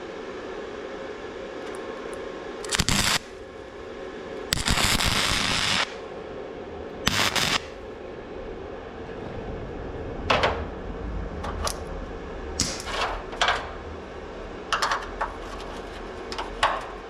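Welding a nut onto the end of a sheared, rusted bolt, so the heat loosens it: several bursts of welding crackle, the longest a little over a second, then a run of shorter spurts, over a steady low hum.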